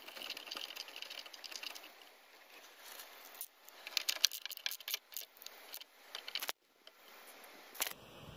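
Ratchet and socket running in a brake caliper bracket bolt, making irregular clusters of sharp metal clicks and clinks, loudest about four to five seconds in. The sound cuts out briefly about six and a half seconds in.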